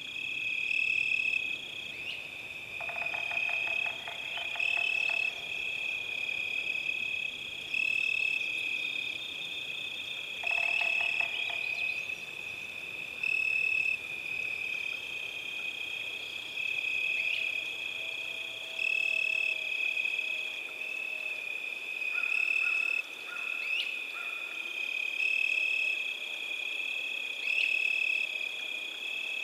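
Frogs calling with a steady, high, pulsing trill. Twice, about three seconds in and again about ten seconds in, a rattling croak lasts for about two seconds.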